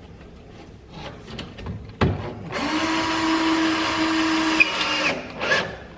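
A power drill/driver runs at a steady speed for about two and a half seconds, driving a screw to fasten a metal drywall profile. A sharp knock comes just before it starts.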